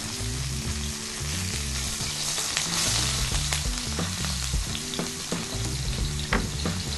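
Mahi mahi fillets sizzling in olive oil in a hot ridged grill pan, a steady frying hiss. There are a few sharp clicks as metal tongs lift and turn the fillets, over soft background music.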